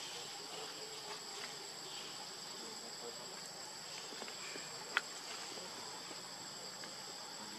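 Steady chorus of insects with a thin high whine held on one pitch, and a single short sharp click about five seconds in.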